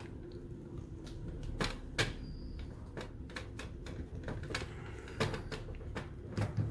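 Irregular light clicks and taps, many in quick succession, as a hand tool pushes the PL-259 clamp connector's cone piece in under the braided shield wires of the coaxial cable.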